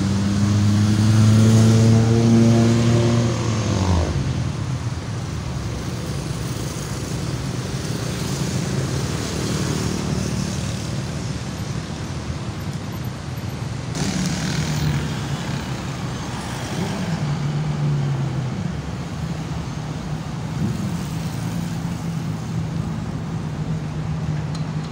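Road traffic: cars and motorbikes passing, with one vehicle's engine droning and rising slightly in pitch for the first few seconds before cutting off abruptly.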